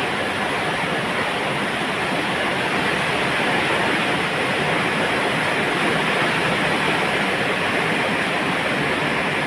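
Heavy downpour driven by strong wind: a loud, steady hiss of rain.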